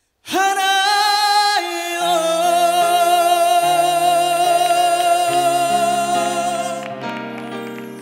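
Male trot ballad singer holding a long, high sung note with vibrato, backed by a live band playing sustained chords over a stepping bass line. Voice and band come in suddenly after a brief silence, and the sound eases off near the end.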